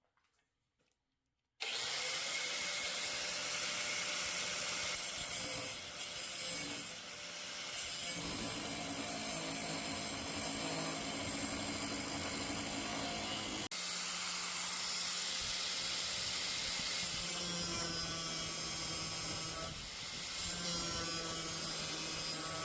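A power tool running steadily as it cuts a knife blank out of old saw-blade steel. It starts about a second and a half in and carries on, with a brief break about halfway through.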